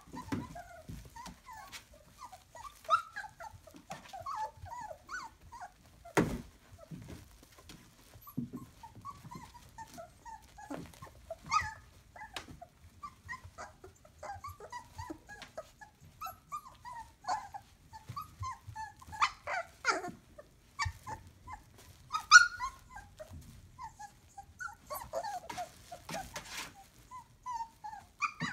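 Three-week-old borzoi puppies giving many short, high squeaks and whimpers, with scattered soft knocks.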